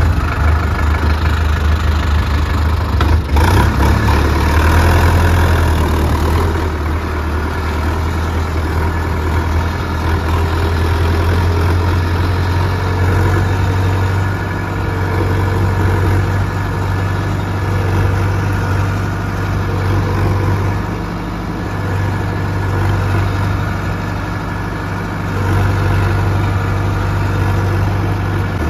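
Sonalika 750 tractor's diesel engine running steadily under way with a deep drone, heard from the driver's seat beside the upright exhaust; its level dips briefly about three-quarters of the way in.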